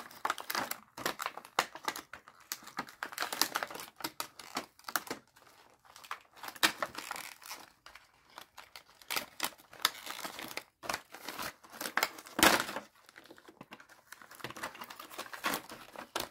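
Clear plastic packaging crinkling as small doll accessories are unwrapped by hand: irregular crackles, with one louder crackle about twelve seconds in.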